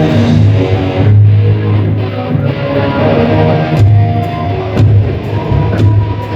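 Live rock band playing hard rock: electric guitar, bass and drum kit, with a heavy bass line and sharp drum hits in the second half.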